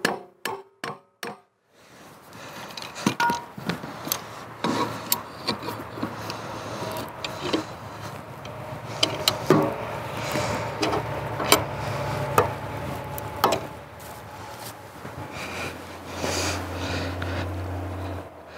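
Metal clamp and wooden guide board being fitted to a cedar log: a quick run of clicks at the start, then irregular knocks and scraping of wood and metal.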